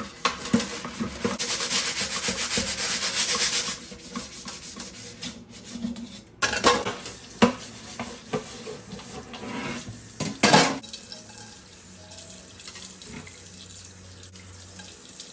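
Water running from a kitchen tap into the sink for a few seconds, then a few scattered clinks of dishes being handled.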